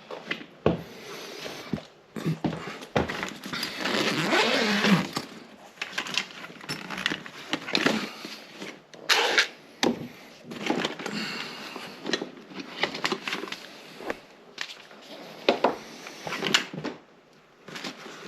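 Irregular clicks, knocks and scraping of hand tools and hardware being worked, with a denser stretch of scraping about four seconds in.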